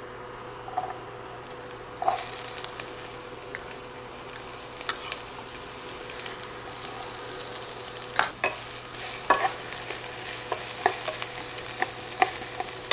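Diced green bell peppers sizzling in hot oil in a skillet. The sizzle starts suddenly about two seconds in, and from the middle on the peppers are stirred, with scrapes and knocks against the pan.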